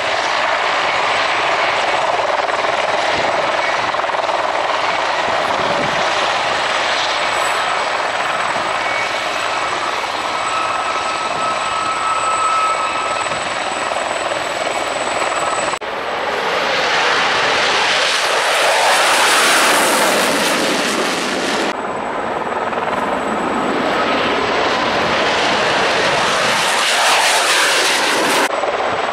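Mil Mi-24 attack helicopter running on the ground: steady turbine whine over rotor noise. About halfway through, the sound cuts to jet engine noise from a fighter flying past, which swells twice and breaks off suddenly each time. The second swell is a Saab JAS 39 Gripen.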